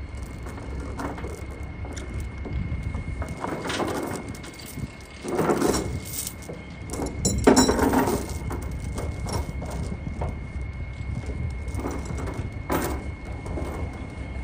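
Steel tie-down chains clanking and rattling as they are handled and pulled up over wooden cable reels on a flatbed trailer, in several separate bursts, the loudest about five and seven seconds in, over a steady low rumble.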